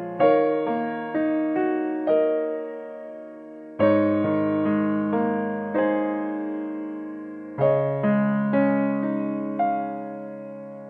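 Background music: a gentle piano piece, with a new chord struck about every four seconds and single notes in between, each fading away.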